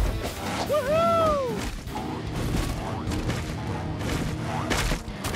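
Background music from an animated cartoon soundtrack, overlaid with sound effects: a pitched glide that rises and falls about a second in, and sharp impact hits, the loudest near the end.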